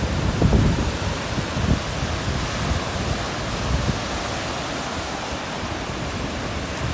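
Surf breaking on a sandy beach: a steady rushing wash of waves, with wind buffeting the microphone in low gusts, strongest in the first second.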